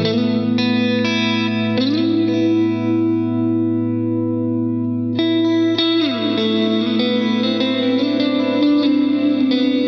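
Electric guitar played through a FLAMMA FS02 reverb pedal on its church reverb setting: a low note rings under sustained upper notes that slide up about two seconds in and back down about six seconds in, with long, washing reverb tails.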